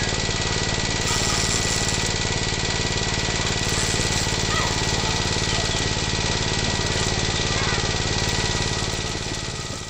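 A remote-control miniature hand tractor, built around a small reused electric motor, running steadily as it pulls a trailer loaded with logs. The sound has a fast, even engine-like pulse and fades away near the end.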